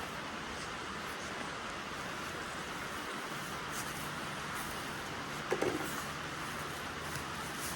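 Steady rushing background noise with a low hum, broken about five and a half seconds in by one brief pitched sound.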